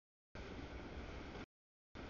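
Faint, even rumble of a freight train's tank cars rolling past, chopped by the audio feed dropping out to dead silence: silent at the start, the sound cutting in about a third of a second in, cutting out again around a second and a half, and returning just at the end.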